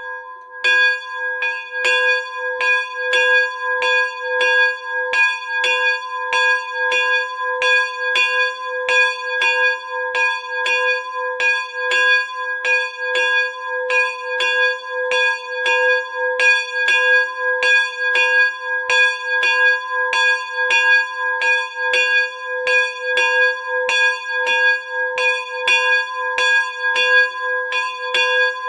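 A 35 kg memorial bell tuned to G-sharp/A-flat, cast by Miklós Gombos in 2020, rung by hand with a rope. Its clapper strikes steadily, about two strokes a second, each stroke ringing on into the next.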